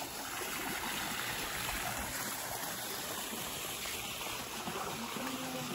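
Steady rush of running water beside a swimming pool, with a brief voice near the end.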